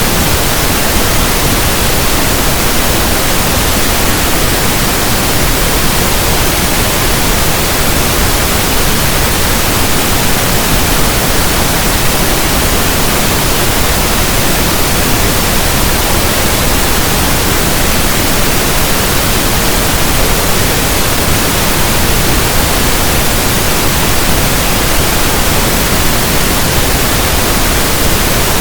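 Generated pink noise: an even, steady static hiss like a radio tuned between stations, with no tones or events in it.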